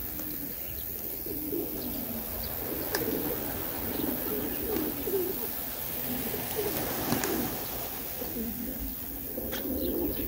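Racing pigeons cooing, many low, wavering coos overlapping continuously.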